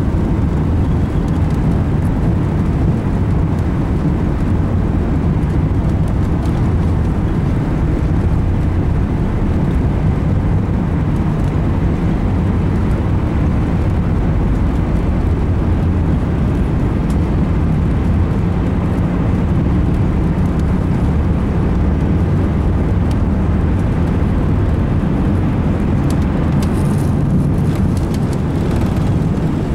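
Steady low rumble heard inside the cabin of an Airbus A380 taxiing, its engines at taxi power and its wheels rolling over the taxiway, with a few faint clicks near the end.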